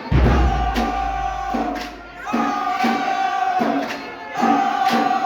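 Marching band playing: the brass holds loud chords in short repeated phrases over steady drum and cymbal strikes, with a deep low bass hit right at the start.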